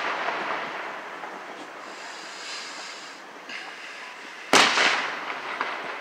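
Aerial firework shells bursting. A boom from just before fades out at the start, then a second sharp boom comes about four and a half seconds in and dies away in a long echo.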